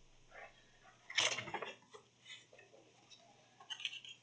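A few short, faint knocks and rustles of items being picked up and handled at a desk, the clearest about a second in and another near the end.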